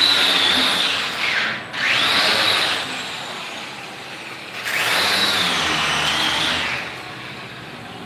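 A high-speed handheld power tool whining: its pitch dips sharply and picks up again near the two-second mark, it runs down about three seconds in, then speeds up again near five seconds and stops shortly before the end.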